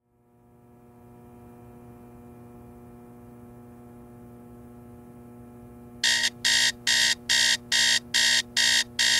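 A faint steady hum, then about six seconds in a digital alarm clock starts beeping in loud, even pulses, about two and a half beeps a second.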